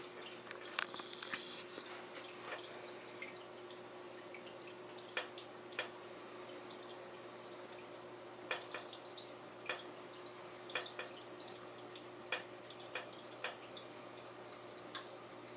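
Aquarium water noise with a steady hum, broken by scattered sharp drips at irregular moments.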